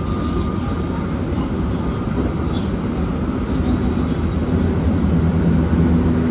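Running noise of a JR West 223-2000 series electric train with Toshiba IGBT inverter drive, heard from the cab: a steady rumble and hiss of wheels on rail. A low steady motor tone grows in from about halfway through.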